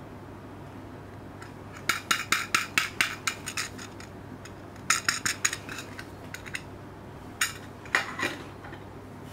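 A metal can badge (pin-back button) being handled: two runs of light metallic clicks and clinks, about five a second, then a few single clicks near the end as the badge is set down.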